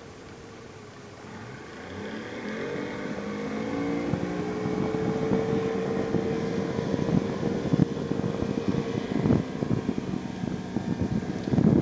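A Tohatsu outboard motor on a plywood skiff throttling up. Its pitch rises over a few seconds and then holds steady at speed. Near the end there are bumps of wind on the microphone.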